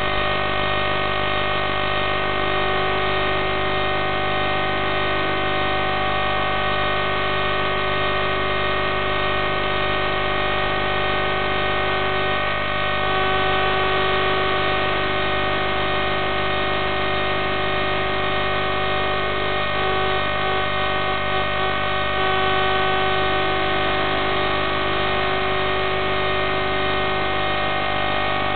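Steady electronic buzz made of many fixed tones over static hiss, typical of the audio channel of an analog FPV video link. No motors are running.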